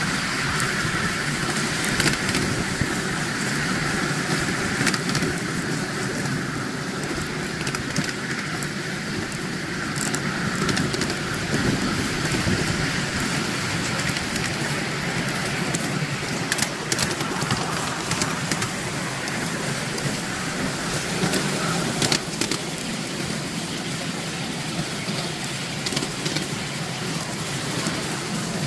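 Miniature railway passenger train running along the track: a steady rumble and rush of wheels on rail, with scattered sharp clicks.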